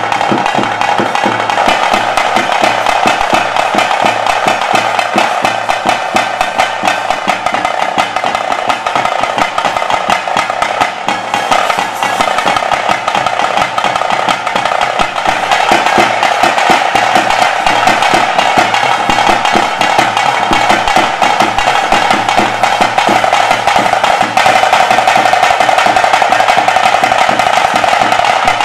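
Live Bhuta Kola (Nema) ritual music: fast, continuous drumming in dense rolls, with a steady held wind-instrument note running over it.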